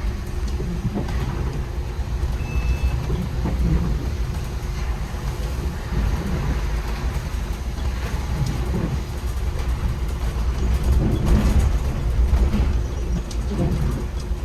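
Steady low rumble of a MAN Lion's City articulated city bus driving in the rain, its running and road noise heard from on board. A short single-pitch beep sounds briefly about two and a half seconds in.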